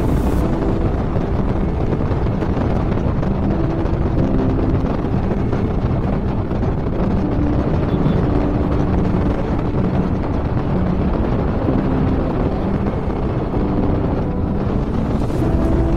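Bajaj Platina 100 motorcycle's single-cylinder four-stroke engine running at a steady cruise, with heavy wind noise on the microphone.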